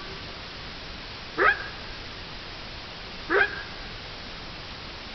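An animal's short pitched call, repeated twice about two seconds apart, over a steady background hiss.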